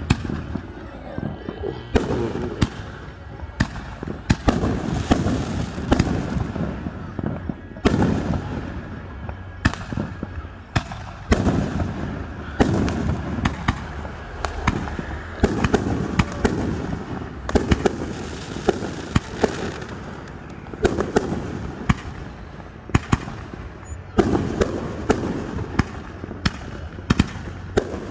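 Aerial fireworks display going off: a long run of sharp bangs and crackles over a low booming rumble, the reports coming faster near the end.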